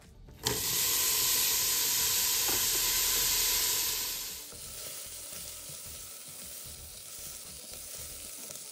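Chopped onions dropped into hot oil in a stainless-steel pot, sizzling loudly at once about half a second in. After about four seconds the sizzle settles lower and steadier as a wooden spatula stirs the onions.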